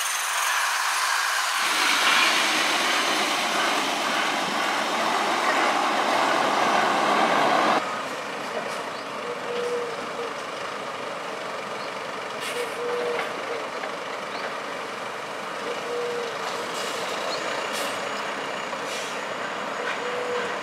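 A Van Hool coach drives close past with a loud hissing rush of engine and tyre noise. About eight seconds in this gives way to a Scania Touring coach standing with its engine running quietly. A short beep repeats about every three seconds over it.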